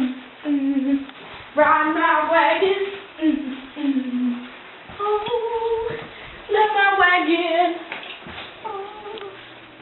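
A child's voice singing short, wavering, held-note phrases with pauses between them.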